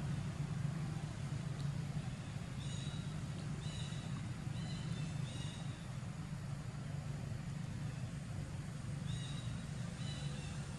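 A steady low rumble, like a motor running at a distance, with short high-pitched chirps or squeaks now and then.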